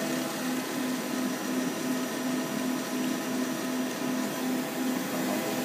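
Wasino TH-10 CNC lathe's left spindle running steadily at about 2,000 RPM: a steady whine of several tones over a hum that pulses about twice a second.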